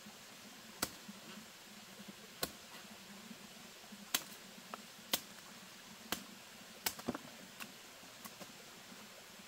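Machete chopping at the stalk of a wild banana bunch: a series of sharp chops, about one a second.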